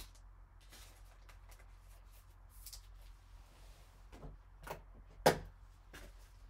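Gloved hands handling trading cards in clear plastic card holders: soft rustles and light plastic clicks, with a sharp click about five seconds in.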